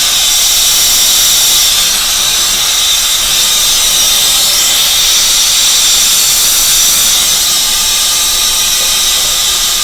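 Steady hiss of a soldering torch flame heating 3/4-inch copper pipe.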